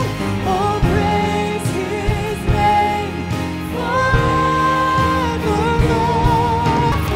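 Worship band music, a lead vocal singing over drums, bass and guitars, played back as a raw mix with all plugins bypassed: no EQ, compression or effects. The sung line wavers in a vibrato near the end.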